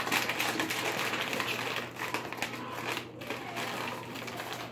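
Shiny metallized plastic snack bag crinkling as it is pulled open and handled, a dense run of small crackles.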